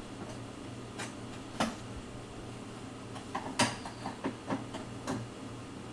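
Scattered light clicks and knocks of freezer drawer hardware being handled as the drawer is fitted back onto its slide brackets and tightened up with a flat screwdriver, several of them close together in the second half, over a low steady hum.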